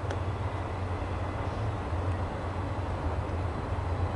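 Steady low background rumble with an even hiss above it, with no distinct events.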